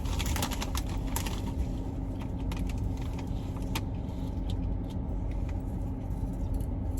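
Steady low rumble of a car heard from inside the cabin, with a faint steady hum, and a few small clicks in the first four seconds.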